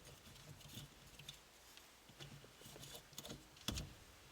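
Faint scattered clicks and light knocks of hand work on a car's steering-wheel horn assembly, with one louder knock about three and a half seconds in.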